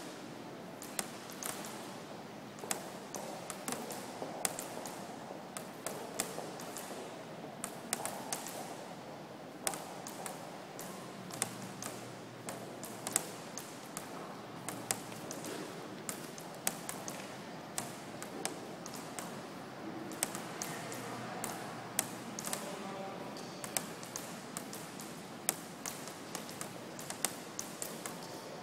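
Water drops falling onto a flat, water-beaded surface, making irregular sharp taps and pings about once a second over steady room ambience.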